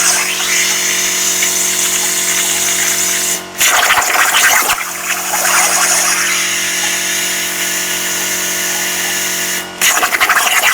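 CNC plasma cutter's torch cutting steel: a steady loud hiss over a hum of several tones. The arc cuts out briefly twice, about three and a half seconds in and near the end, and each time it restarts with a harsher burst lasting about a second.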